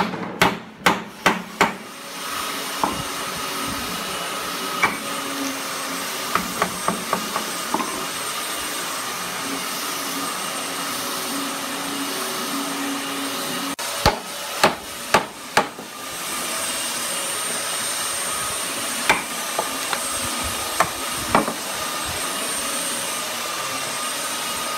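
A hammer driving nails into a hardwood door frame: a quick run of sharp blows at the start, a group of four about halfway through and a few more near the end. Under the blows, from about two seconds in, a steady machine noise with a thin high whine keeps running.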